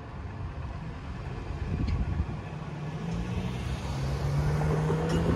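Road traffic: cars driving across the railroad crossing, with engine hum growing louder toward the end as a car passes close by.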